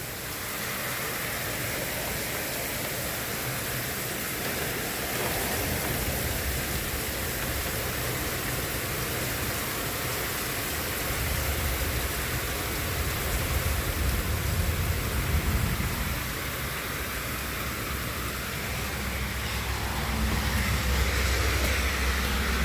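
Heavy thunderstorm rain falling steadily, a dense hiss. A deep low rumble swells in for a few seconds past the middle and again near the end.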